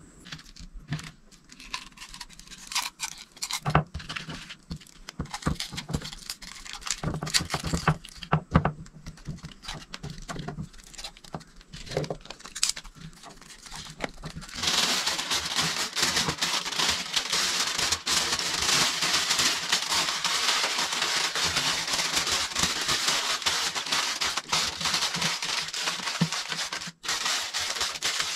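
Small scattered knocks and clicks of hands handling food and a knife on a wooden board. About halfway through, a loud steady hiss starts suddenly and continues.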